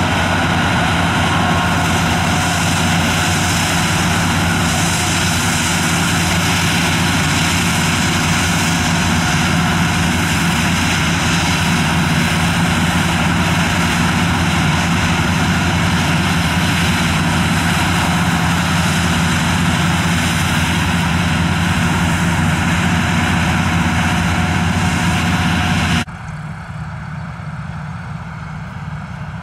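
Don-1500 combine harvester's diesel engine and threshing machinery running steadily while it cuts grain close by. About 26 seconds in, the sound drops abruptly to a quieter, duller hum as the combine is heard from far off.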